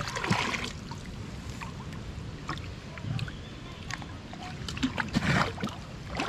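Water poured out of a plastic bucket splashing into a river, then faint water sloshing with small ticks of hands working at a net. A second splashing rush comes near the end as the bucket is dipped back into the water.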